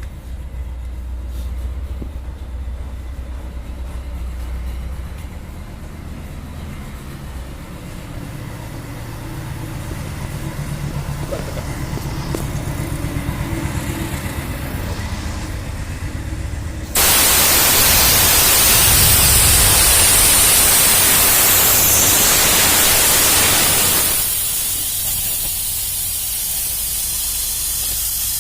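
Dental air compressor running as it fills its 30-litre tank, a steady low motor drone with a fast even pulsing. About two-thirds of the way in a loud hiss of escaping air starts suddenly, then drops to a quieter hiss some seconds later and keeps going.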